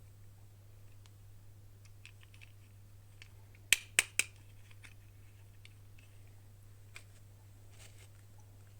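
Hands handling plastic toy packaging and dolls: light scattered taps and clicks, with three sharp plastic clicks in quick succession about four seconds in.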